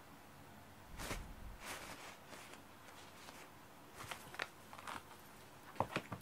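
Two cats wrestling on a foam floor mat among cloth bags: scuffling and rustling in short bursts, with a few sharp clicks near the end.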